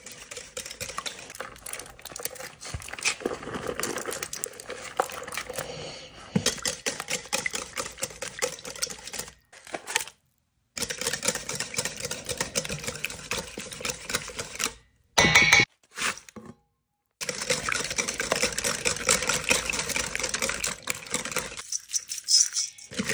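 Cooking in a pan: a steady crackle of many small clicks, with a brief louder scrape about fifteen seconds in. It cuts abruptly to silence twice, around ten and sixteen seconds in.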